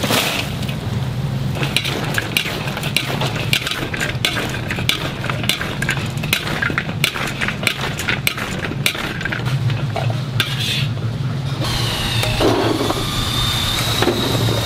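Fried chicken pieces for dakgangjeong tossed in bubbling sauce in a large wok, a metal spatula scraping and clinking against the pan over the sizzle. About twelve seconds in the scraping stops, leaving a steady hum with a thin high whine.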